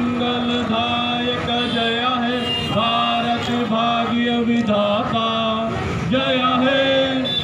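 A man singing slowly into a microphone, holding long steady notes with short breaths between them. He sings while those around him stand at salute at the flag: the national anthem.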